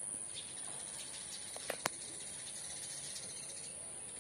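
Steady high-pitched drone of insects over a faint hiss, with two sharp clicks close together a little under two seconds in.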